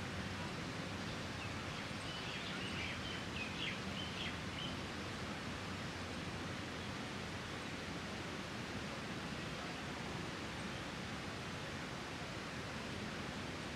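Steady outdoor background hiss, with a bird chirping in a short run of quick notes about two seconds in.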